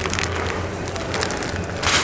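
Plastic produce bags crinkling as they are handled and put into a shopping cart, with a louder rustle near the end, over a steady low hum.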